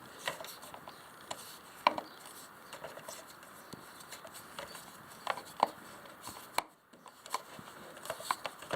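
Scattered light clicks and clinks of hand tools and small metal parts being handled while a fastener is refitted on a motorcycle.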